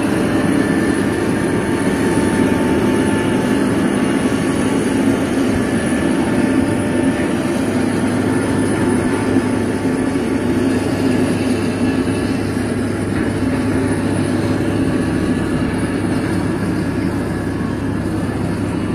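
Heavy diesel truck running steadily under load as it tows a mast-up drilling rig on its wheeled carrier, a continuous low drone with no breaks.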